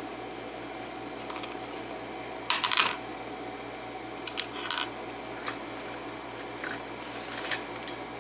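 Small metal parts of a Schlage KIK lock cylinder and hand tools clicking and clinking as the lock is taken apart, in several short clusters, the loudest about two and a half seconds in.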